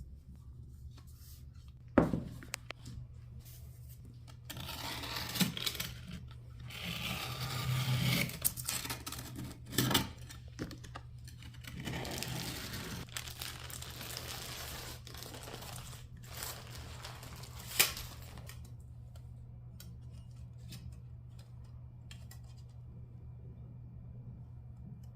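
Kitchen handling sounds from preparing a cake: a sharp knock about two seconds in, then a long stretch of rustling and scraping with a few small knocks, and another sharp click near the end, over a steady low hum.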